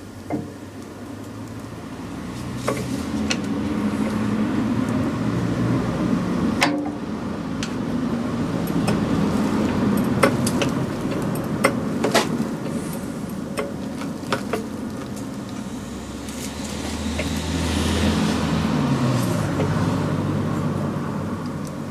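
Road vehicles passing, a low rumble that swells and fades three times, the last with a falling pitch, mixed with scattered sharp metallic clicks and knocks from work on the car's front suspension.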